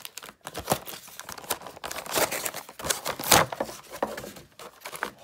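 Clear plastic blister tray of a boxed action figure crinkling and crackling as it is handled and pulled from its box, in a rapid, irregular run of crackles, the loudest a little past three seconds in.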